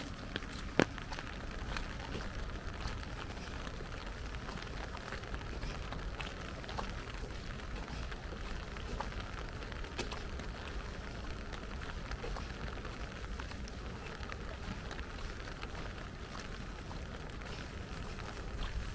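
Light rain pattering steadily, with scattered small drop ticks. A single sharp click just under a second in is the loudest sound.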